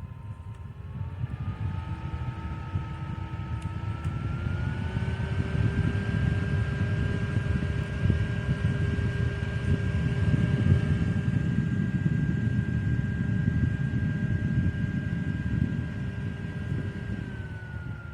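Small USB desk fan running with a rush of air and a thin motor whine that glides up in pitch twice as its speed is turned up, then drops a little near the end as it is turned down.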